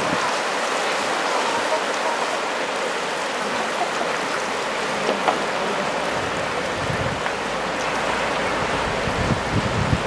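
Ocean surf breaking in a steady hiss, with low gusts of wind on the microphone from about seven seconds in.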